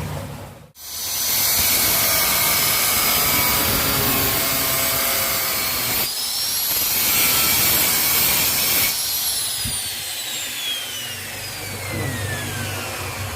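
Electric grinder working the steel of a stone chisel, running at speed with a high whine. About two-thirds in it is switched off and the whine falls steadily in pitch as the disc coasts down.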